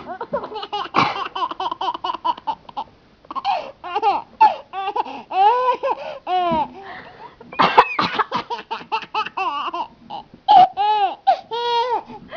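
A baby laughing in repeated bursts of giggles and belly laughs at a woman's deliberate fake coughs, which cut in sharply a few times.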